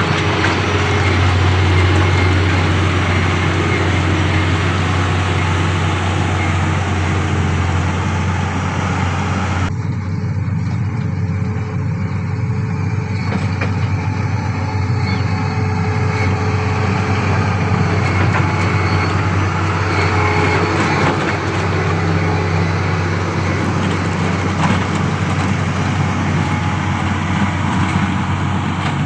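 Diesel engine of heavy road-building machinery running steadily, a continuous low hum.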